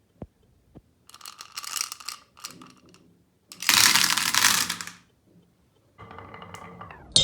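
Marbles rolling and clattering down a toy marble run track: a few sharp clicks, then bursts of rattling, the loudest about three and a half to five seconds in, and a ringing sound near the end.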